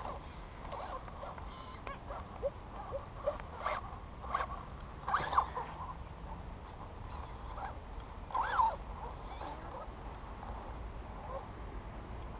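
Twin Hammers RC rock crawler's electric motor and drivetrain whining in short bursts that rise and fall in pitch as it crawls up a steep dirt bank. A few faint clicks come with them, over a low steady rumble.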